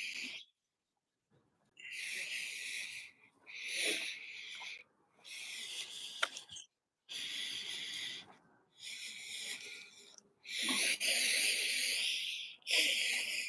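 A series of breathy hissing bursts, each about a second long with short gaps between, like wheezy breaths.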